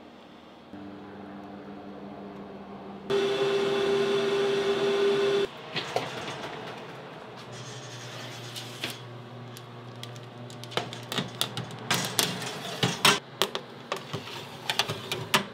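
A steady electronic buzz for about two and a half seconds that cuts off sharply, then the clanks and scrapes of metal baking trays being handled and slid onto the racks of a convection oven, over the hum of the oven's fan.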